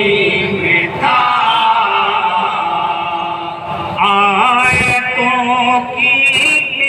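Men's voices singing a devotional Urdu kalam in a chant-like melody through microphones, with held, wavering notes.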